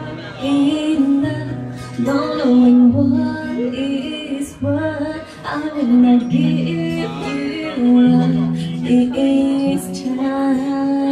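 Music: a woman singing a slow song over guitar accompaniment, with held bass notes changing about every second.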